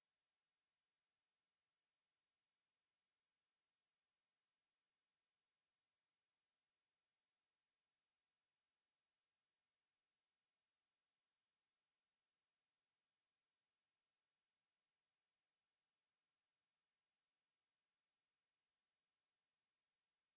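A steady, high-pitched 7606 Hz sine-wave test tone: one pure, unchanging pitch with no breaks, as used for testing speakers and headphones.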